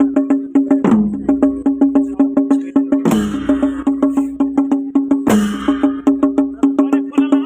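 Panche baja, Nepali traditional band music: one steady held wind tone over fast, even drum strokes, with a heavy drum-and-cymbal crash about every two seconds.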